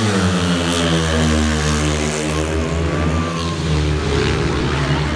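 A pack of speedway bikes' 500cc single-cylinder methanol engines at full throttle, pulling away from the start. The pitch drops over the first second as the bikes sweep past, then holds steady as they run on down the straight.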